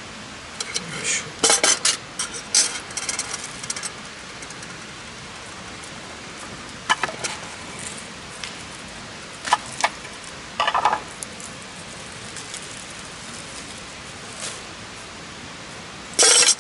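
Irregular clinks and clatters of dishes and utensils being handled: a busy run of them in the first few seconds, a few more scattered through the middle, and one louder clatter near the end, over a steady hiss.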